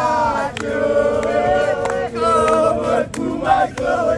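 Crowd of football supporters singing a chant together, voices held on long sung notes, with sharp hits now and then.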